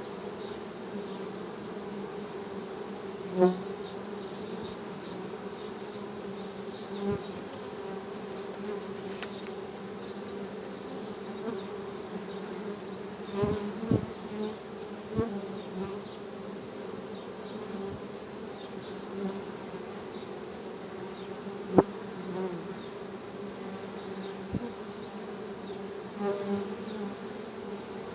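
Honey bees buzzing: a steady hum of many bees, with single bees passing close and swelling louder for a moment now and then. There are a few short sharp clicks, the loudest about three quarters of the way in.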